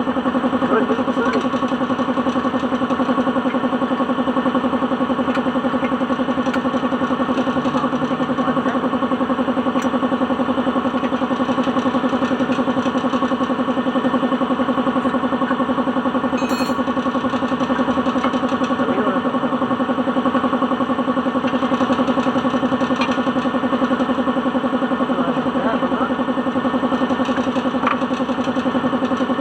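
Suzuki DA16's engine idling steadily with an even hum and no revving, running after a transmission overhaul for shifting trouble into reverse and fifth gear.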